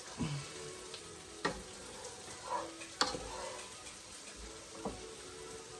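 Vegetables sizzling softly as they sauté in oil in a pan, with a few short, sharp knocks of a utensil against the cookware.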